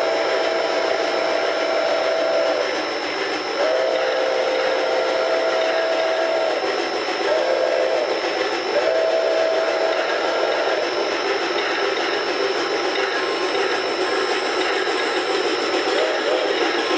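Sound-equipped model steam locomotive blowing its chime whistle in the grade-crossing pattern, long, long, short, long, with a brief toot near the end, over a steady hiss.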